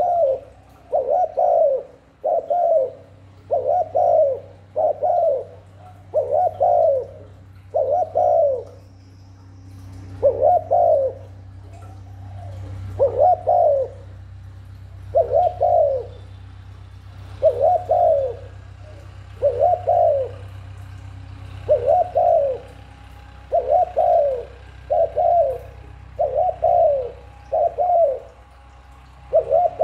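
Spotted dove (cu cườm) giving its bowing coo (gáy gù), short coos repeated about once a second with a few brief pauses. This is the call keepers use to lure wild doves in.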